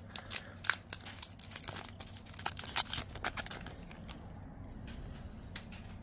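A foil trading-card pack wrapper being torn open, with sharp crinkling and crackling for the first three seconds or so. It then gives way to a fainter rustle as the stack of cards is handled.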